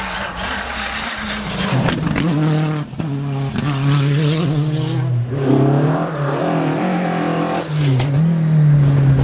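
Rally car engine under hard load on a stage, its pitch dipping and climbing again several times as the driver lifts and changes gear.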